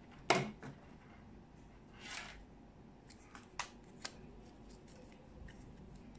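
Handling of a small plastic retractable tape measure: a sharp clack about a third of a second in, a short rustle around two seconds in, then a few light clicks as the tape is drawn out.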